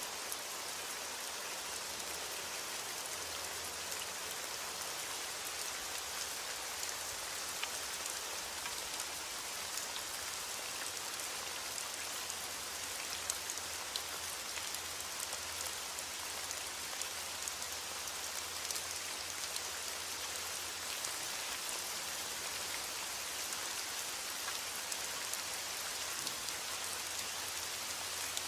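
Heavy rain beating on a window glass, a steady hiss with scattered sharp ticks.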